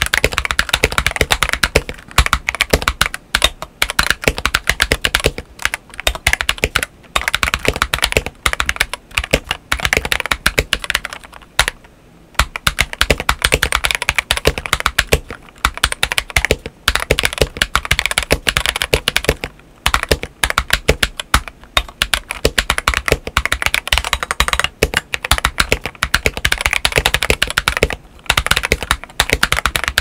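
Continuous typing on a modded LK67 mechanical keyboard with a steel plate, Akko CS White switches and SA-profile PBT keycaps: rapid key presses with a few brief pauses.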